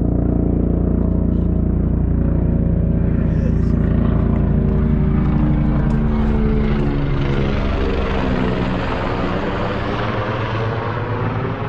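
Helicopter flying low overhead, loud, its rotor beating steadily. About halfway through, its pitch falls as it passes and moves away.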